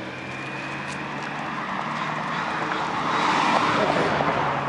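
A car passing along the street, its tyre and engine noise swelling to a peak about three and a half seconds in and then fading, over a steady low hum.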